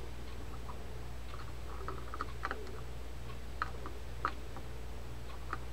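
A handful of faint, scattered clicks and taps from a magnetic-tip screwdriver and small steel screws against a South Bend Condor spinning reel as the fiddly screws are worked back in, over a steady low hum.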